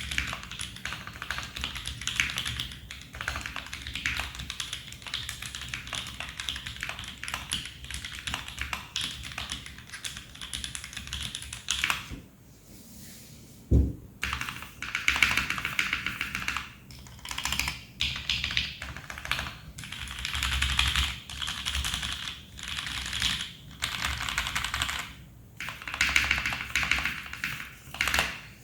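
Mechanical keyboard with lubed C3 Kiwi tactile switches, a brass plate and PBT Cherry-profile keycaps in a foamed Tofu65 case, typed on steadily. After a short pause and a single low thump about 14 seconds in, it is typed in fast bursts of keystrokes with short gaps between them.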